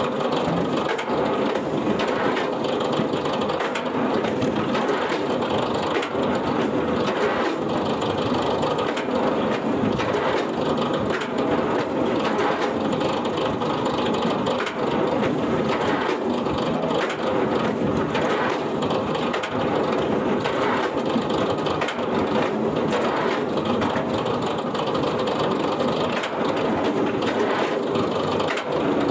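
A wood-processing machine crushing wood, with continuous dense crunching and crackling at a steady level.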